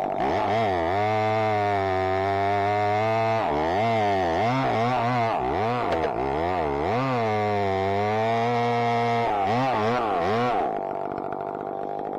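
McCulloch 850 two-stroke chainsaw running at high revs, its pitch dipping and recovering several times. About ten and a half seconds in it drops to a lower, quieter note.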